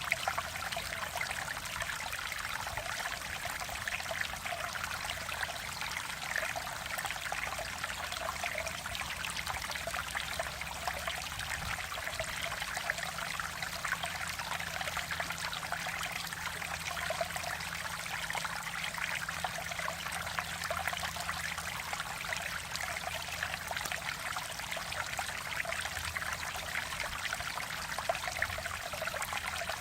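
Mountain stream water flowing and babbling over rocks: a steady, continuous rushing with a fine trickling texture.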